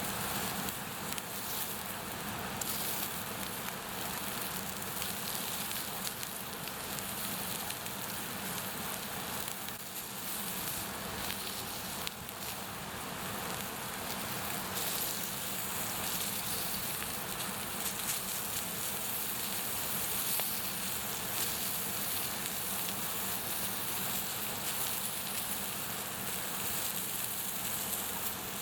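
Raw, unsmoked pork sausages sizzling over a wood campfire, with the fire crackling steadily throughout.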